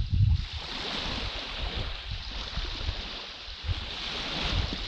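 Small waves washing onto a sandy beach in a steady hiss, with wind buffeting the microphone in a low rumble at the start.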